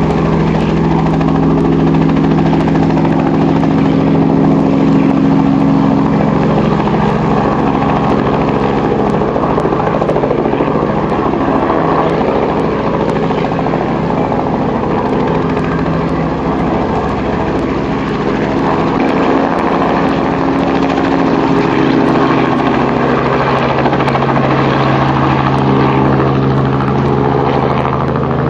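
Small two-bladed piston helicopter hovering low and hover-taxiing close by: a steady, loud engine drone with the rapid chop of the rotor blades.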